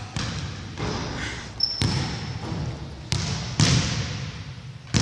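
Basketballs bouncing on a hardwood gym floor: about six irregular thuds, each echoing through the large hall. A brief high squeak comes about two seconds in.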